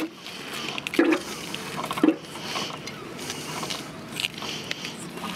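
Sharp clicks and knocks, roughly one a second, from hands working the oil fittings on the tank of a 1901 Triumph motorcycle while it is primed with oil before starting; the engine is not running.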